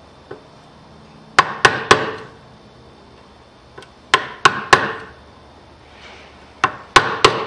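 A wood chisel being struck to chop out a notch in a timber held in a vise, working down a little at a time so the wood doesn't split. The strikes come as three quick groups of three sharp knocks, each with a short ring, and there are a couple of light taps between them.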